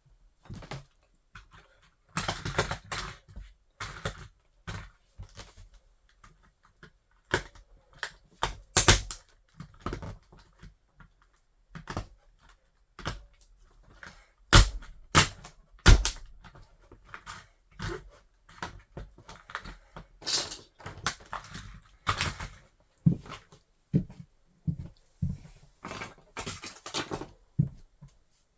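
Toy car crunching and cracking under a wedge sandal: irregular sharp snaps and crackles, some in quick clusters, with short pauses between.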